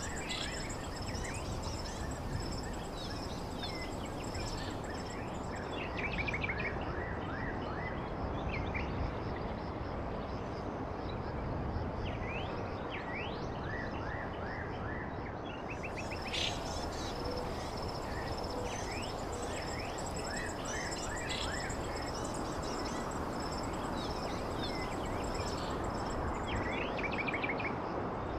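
Outdoor ambience: birds chirping in short, quick phrases over a steady high-pitched insect drone, with a low steady rumbling noise underneath.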